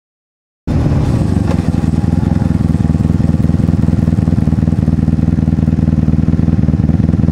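Honda Magna motorcycle's V4 engine running as the bike rides along, a loud, steady, low exhaust note that cuts in abruptly about a second in.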